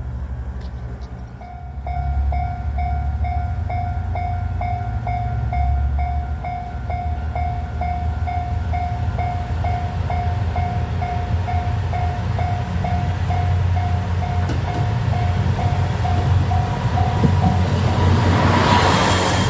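Japanese level-crossing warning bell ringing, an electronic ding repeating about twice a second, starting about a second and a half in. Near the end the noise of the approaching train builds up and takes over as the ringing stops.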